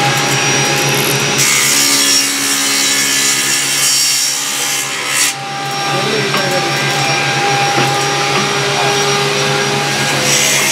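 Electric woodworking saw running with a steady motor hum, and the harsher hiss of a board being cut from about a second and a half in to about five seconds in, where the sound briefly dips.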